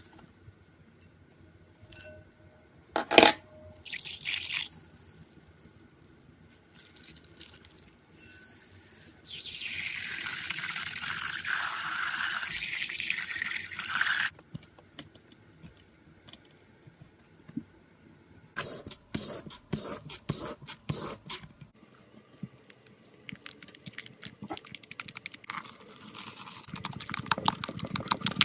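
Slime being handled by hand: scattered clicks and pops, one sharp snap about three seconds in, a steady hiss lasting about five seconds in the middle, and quick runs of crackles near the end.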